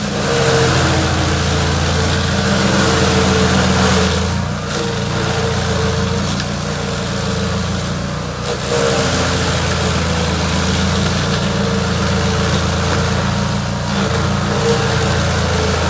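Chainsaw engine running steadily, its note dipping briefly three times, about every four to five seconds.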